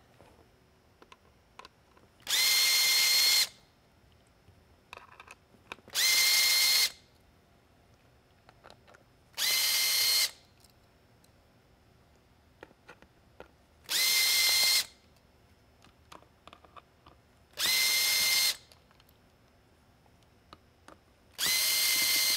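A power screwdriver backing out six Phillips head screws: six short runs of about a second each, a few seconds apart, each a steady high motor whine. Light clicks of screws and parts being handled come in between.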